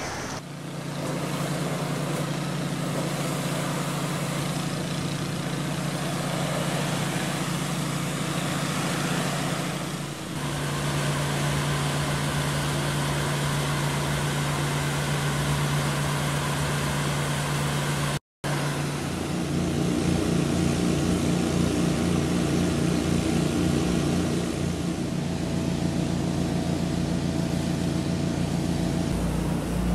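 Pressure washer engine running steadily under the hiss of the water spray. The sound shifts about ten seconds in and cuts out for a moment around eighteen seconds in.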